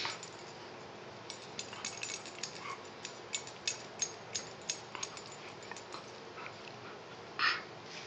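Small sounds of a four-month-old Bernese mountain dog puppy being petted: a run of light clicks and smacks, two or three a second, then a short breathy huff about seven seconds in.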